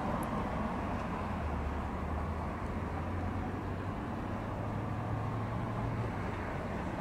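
Dodge Charger SRT's V8 exhaust idling with a low, steady burble, over street traffic noise. The low tone rises slightly about four seconds in and drops back about two seconds later.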